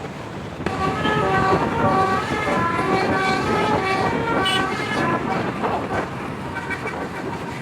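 Telolet horn on a Tunggal Jaya bus: a multi-tone bus horn playing a fast tune of short notes at changing pitches. It starts just under a second in and is weaker after about five seconds, over vehicle noise.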